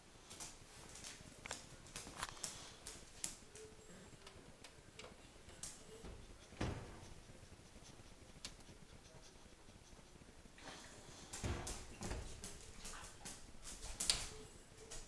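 Light clicks and knocks of a stainless-steel electric range being handled, its oven door opened to show the racks inside: a heavier thump about halfway through and a flurry of knocks near the end.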